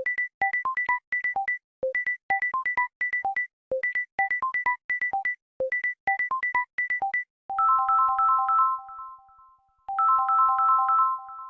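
Two electronic phone ringtones, one after the other. The first is a fast synth melody of short beeps that repeats about every two seconds. About seven and a half seconds in, it gives way to a softer chiming figure of three notes, played twice with a ringing tail.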